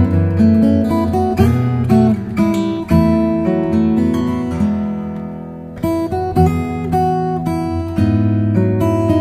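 Background acoustic guitar music, strummed chords changing every second or so. About halfway through, one chord is left to ring and fade, then the strumming picks up again.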